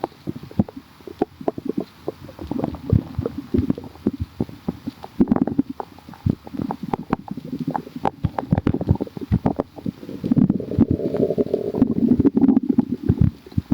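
Human stomach gurgling and growling, very bubbly: a fast, irregular run of short pops and gurgles, with longer drawn-out growls about ten to thirteen seconds in.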